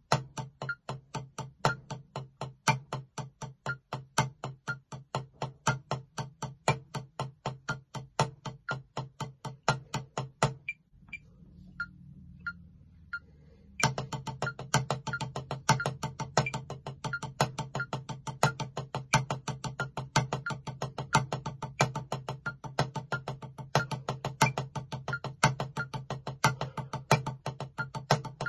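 Wooden drumsticks striking a rubber practice pad in a fast, even stream of strokes, playing a paradiddle-diddle and paradiddle sticking pattern. The playing stops about eleven seconds in and resumes some three seconds later.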